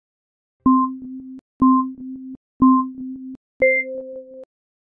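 Electronic countdown-timer beeps: three identical lower-pitched beeps about a second apart, then a fourth, higher beep that signals the start. Each beep lasts under a second.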